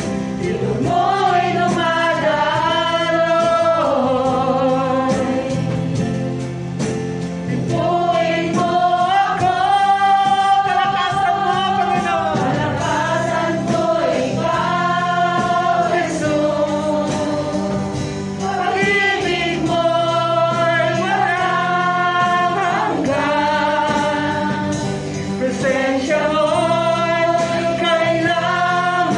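Gospel praise-and-worship song: sung melody in phrases over a steady instrumental accompaniment.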